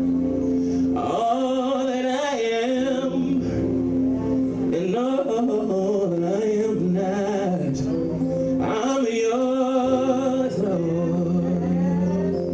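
Gospel worship music: held instrumental chords under a male voice singing long, wavering, melismatic phrases.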